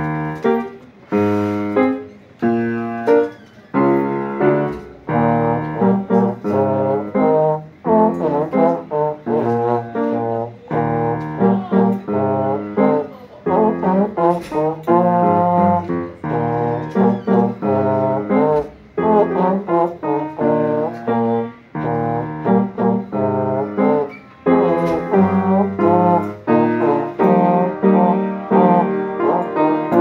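Slide trombone playing a melody in separate notes over a piano accompaniment.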